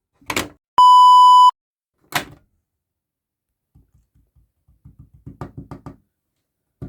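A click as a fire alarm manual call point is pressed, then one loud, steady electronic beep lasting under a second. Another click follows, and then a run of faint quick clicks.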